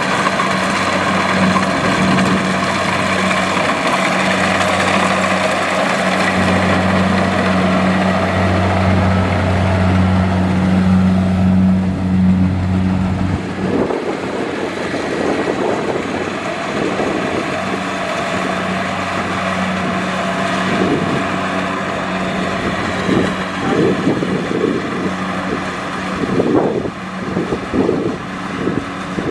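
Tractor engine running steadily. About halfway through, the sound changes to a rougher, uneven running with irregular knocks and clatter.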